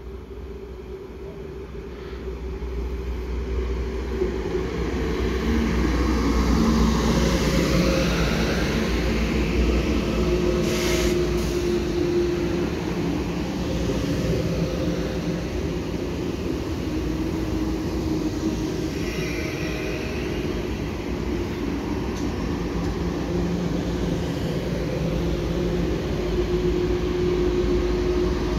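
Deutsche Bahn ICE high-speed train approaching and running past a station platform. Its rolling noise of wheels on rail grows louder over the first several seconds, then holds steady with a humming tone as the long train of carriages goes by.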